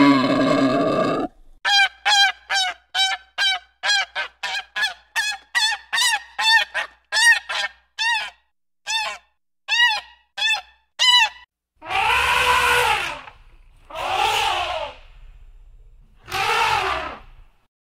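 A wild boar's grunting call cuts off about a second in. Then a swan gives a long run of short, clear honks, two or three a second, for about ten seconds, followed by an Asian elephant trumpeting four times, each call about a second long.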